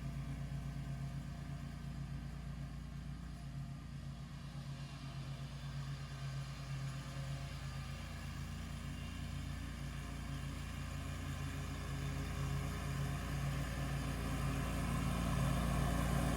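Scag V-Ride II stand-on mower's engine running steadily, growing louder near the end.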